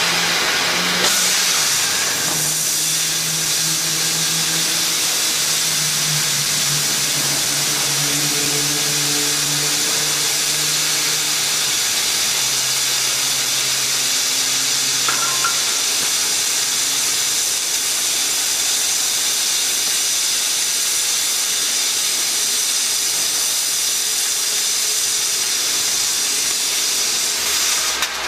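Plasma torch of a CNC H-beam cutting machine cutting through a steel beam: a loud, steady hiss that starts about a second in, with a low machine hum changing pitch during the first half.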